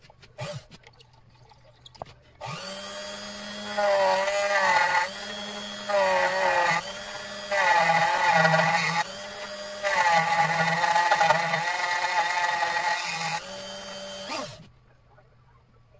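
Small milling machine's spindle motor starts about two and a half seconds in and runs for about twelve seconds, its whine getting louder and dipping in pitch four times as the cutter takes a cut, then stops abruptly. A faint click comes just before it.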